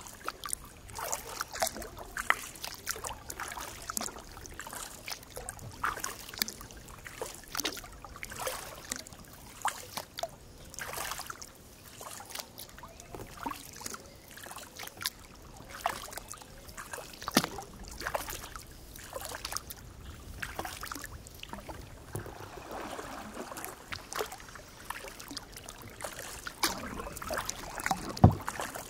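Kayak paddling on calm water: irregular small splashes and drips as the paddle blades dip in and come out, with one sharper knock near the end.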